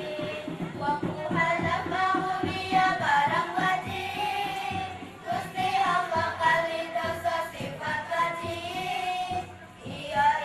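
A group of voices singing a melodic song over a backing track with a steady beat.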